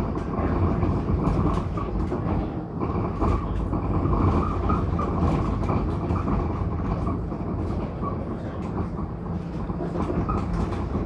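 TTC Flexity Outlook streetcar running along its rails, heard from on board: a steady low rumble with frequent light clicks and rattles.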